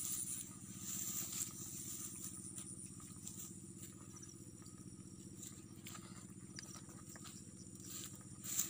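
A small engine running steadily out of sight, a low even drone with no change in speed. Light scattered clicks and rustles sound over it, with a sharper tick near the end.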